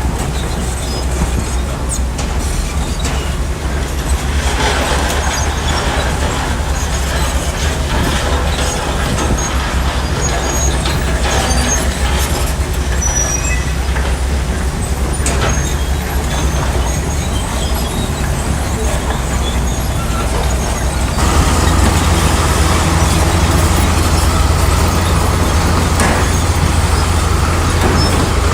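Heavy construction machine's diesel engine running steadily. About three quarters of the way through it grows louder and deeper-toned, as if put under more load or revved.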